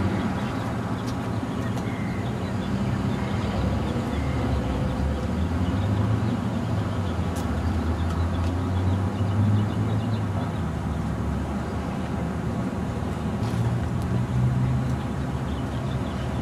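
Steady low outdoor background rumble, with no speech, that swells twice, in the middle and near the end.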